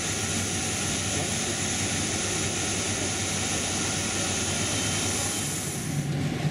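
Jet aircraft engine noise: a steady high whine over a low rumble. About six seconds in the whine drops away, leaving a lower hum.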